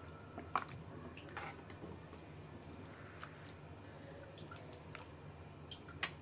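Steel ladle scooping thin gravy from a pan and pouring it into a bowl: faint sloshing and dripping of liquid, with a few light clinks of the ladle against the pan, the sharpest one near the end. A steady low hum runs underneath.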